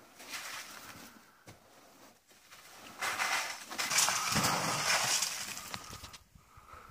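Snow brush sweeping and scraping snow off a boat's canvas winter cover, with clumps of snow sliding and dropping away. Faint at first, much louder from about three seconds in.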